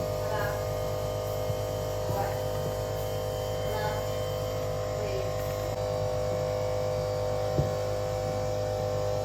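Steady electrical hum made of several constant tones, with a few light clicks and one sharper knock about seven and a half seconds in.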